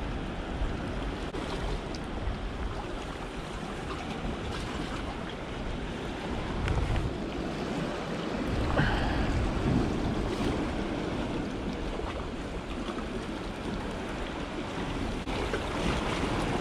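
Sea waves washing against shoreline rocks, with wind buffeting the microphone and a stronger low gust about halfway through.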